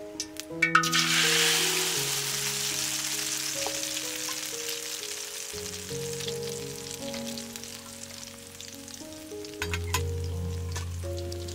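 Beaten egg mixed with enoki mushrooms and chopped vegetables sizzling as it hits a hot steel pan: a loud frying hiss about a second in that slowly settles to a steady fry. A few light clicks near the end.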